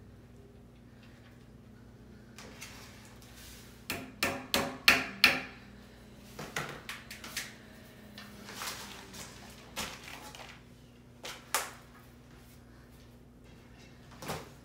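Knocks and clatter of a wooden spindle chair frame being handled and turned over on cardboard, with a quick run of about five sharp knocks a few seconds in, scattered knocks and rustling after, and one loud knock near the end as the frame is tipped onto its side.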